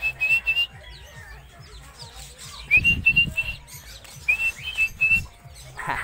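A person whistling to call a free-flying pet lovebird back to the hand: three short whistled calls, each a quick rising note followed by a few chirpy pulses at the same pitch. A brief flutter of wings near the end as the bird comes in to land.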